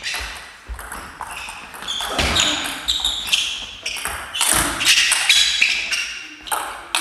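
Table tennis rally: the ball clicking off the bats and the table in quick, irregular succession, with short high squeaks in between.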